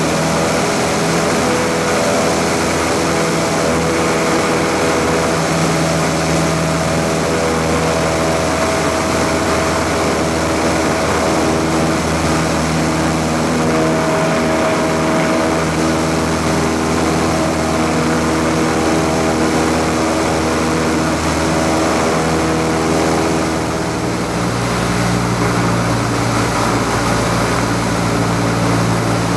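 Light single-engine aircraft's piston engine and propeller heard from inside the cockpit, running steadily in flight. About three-quarters of the way through, the engine note changes and briefly drops a little in level, then runs steady again.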